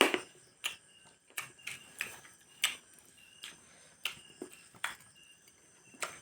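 Eating sounds: a string of irregular light clicks and taps, about two a second, the sharpest right at the start and again a little before the middle.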